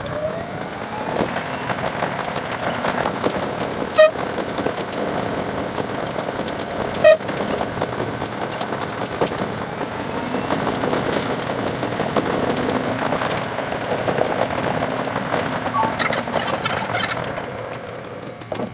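Train running noise from a local electric train, played back at ten times speed, so the wheel and motor sounds blur into a dense, continuous rushing rumble whose pitch rises and falls. Two short, sharp blips stand out about 4 and 7 seconds in.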